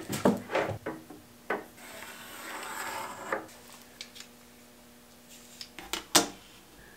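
Plywood panels and metal tools being handled on a plywood drawer box: a few wooden knocks, then a scraping rub for about a second and a half, and one sharp knock near the end.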